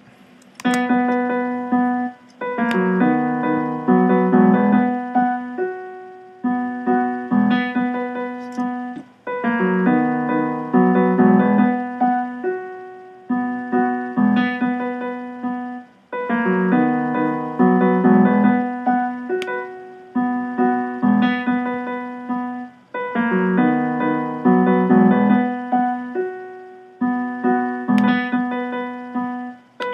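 Ableton Live's default grand piano playing MIDI notes converted from a song's harmony, a four-bar phrase looping about every seven seconds. The automatic conversion is not exact: some notes are off.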